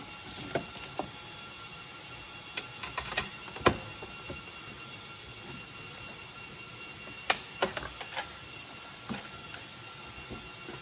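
Scattered sharp clicks and knocks of metal parts being handled as a GPU riser bracket is seated in an HP ProLiant DL380p Gen8 server chassis, over a steady faint hum.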